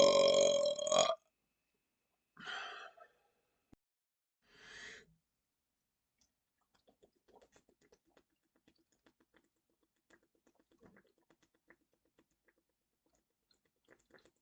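A man's long, loud belch, gassy from chugging a two-liter of A&W root beer, held on one pitch and cutting off about a second in. Two short breathy puffs and faint small clicks follow.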